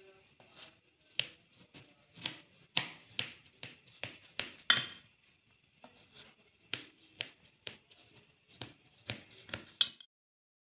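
Knife cutting through semolina halwa in a steel plate, the blade clicking and scraping against the metal in irregular sharp taps. The taps stop shortly before the end.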